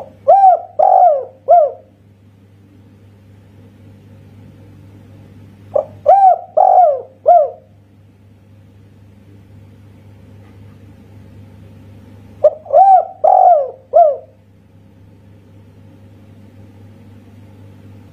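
Spotted dove (tekukur) cooing three times, about six seconds apart, in the song type Indonesian keepers call 'kuk satu'; each phrase is a short note followed by three arching coos. A steady low hum lies under it.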